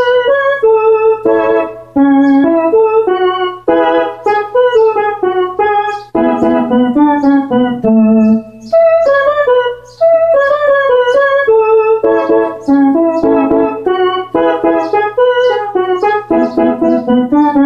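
Electronic keyboard playing a single melodic phrase of sustained notes in a bright, organ-like voice, repeated about four times over a steady low drone.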